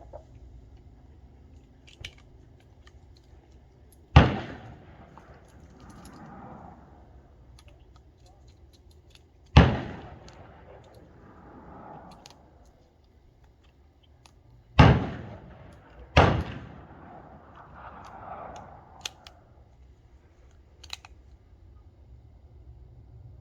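Colt King Cobra Target revolver firing .357 Magnum rounds: four loud single shots several seconds apart, the last two about a second and a half apart, each followed by an echo that dies away. Faint clicks come between the shots.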